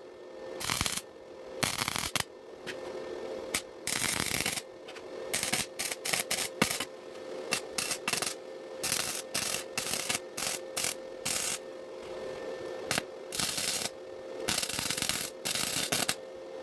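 Wire-feed welder arc crackling and sputtering in many short bursts with brief pauses between, as a crack in a steel exhaust pipe is welded. A steady hum runs underneath.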